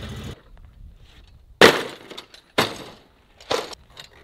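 Three sharp crashes about a second apart, each dying away quickly, with a breaking, shattering quality.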